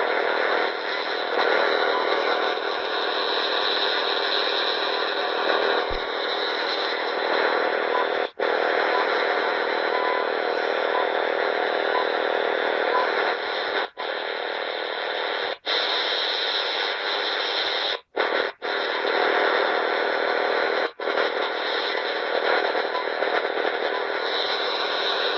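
Shortwave radio tuned near 10 MHz (Tecsun PL-360), putting out a dense, steady interference noise with faint short beeps repeating through it. The noise cuts out abruptly for an instant several times. The uploader wonders whether it is a Russian radar signal.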